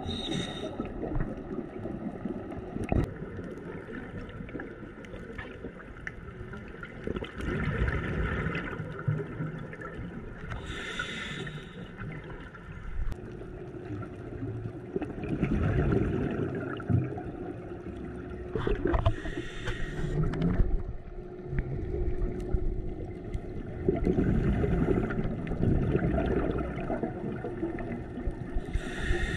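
Underwater breathing through a scuba regulator, heard through the camera housing: a brief hiss of each inhalation and a rumbling gush of exhaled bubbles, repeating every several seconds.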